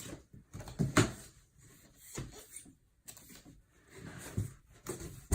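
Handling noises from unpacking a heavy shipped item: a few separate knocks and thuds, the loudest about a second in, with soft rustling and scraping between them.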